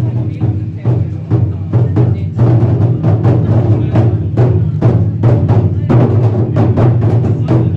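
Japanese taiko drums being played, a quick stream of strokes over a deep, ringing low drum tone, with sharp woody clicks among the hits.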